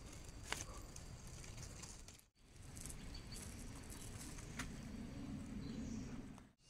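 Faint outdoor field ambience with two sharp clicks, one about half a second in and one past the middle, and a faint low hum in the second half; the sound drops out briefly twice.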